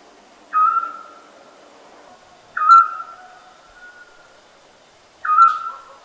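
An owl calling three times, about every two and a half seconds. Each call is a short whistled note that starts with a brief higher note and settles onto a steady tone.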